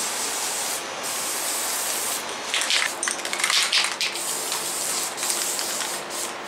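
Aerosol can of Rust-Oleum Aircraft Remover paint stripper spraying a wet coat in several long hissing bursts with short breaks between them, choppier around the middle.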